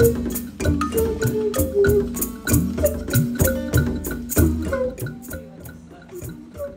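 Percussion music: a steady rhythm of drum strikes with low tones that bend in pitch, and short pitched notes over them, growing quieter over the last couple of seconds.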